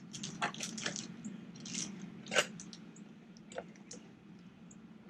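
Small tools and parts of a torque wrench kit being handled: a scatter of short clicks and taps, the sharpest about two and a half seconds in, over a faint steady low hum.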